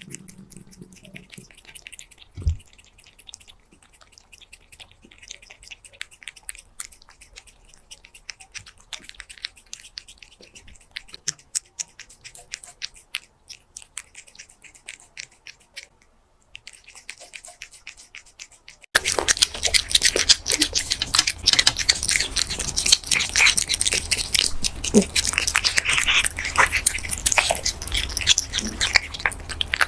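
A silver-shaded British Shorthair cat eating close to the microphone, a dense run of small wet chewing and biting clicks. The clicks jump suddenly louder and denser about two-thirds of the way through.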